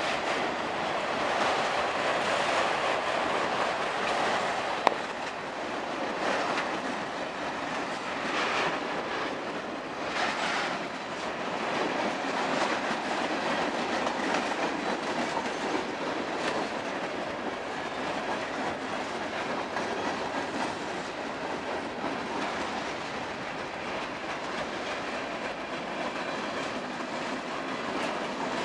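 Auto-rack freight cars rolling past in a steady stream, wheels clattering over the rail joints. A few brief louder bursts of wheel noise come early on, and a sharp click about five seconds in.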